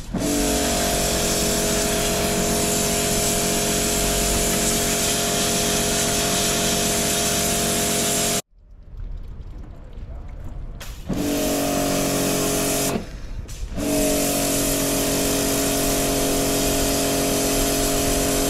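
Kärcher electric pressure washer running, its pump motor humming under the hiss of a plain high-pressure water jet on a steel boat hull. It cuts off suddenly about eight seconds in, runs again briefly around eleven seconds, then starts up once more at about fourteen seconds and runs on.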